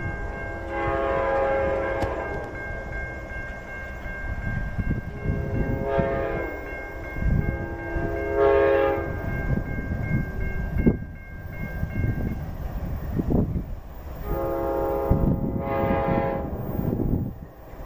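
Diesel locomotive horn sounding four blasts (long, short, long, long) over the steady low rumble of diesel locomotives.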